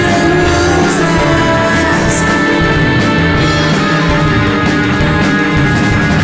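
Loud alternative rock music: distorted guitars and drums at full band, with sustained melodic lines that bend in pitch.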